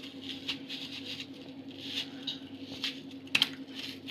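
Knife cutting an onion into quarters: a few faint crisp cuts and small taps, with one sharper click a little past three seconds in. A steady low hum runs underneath.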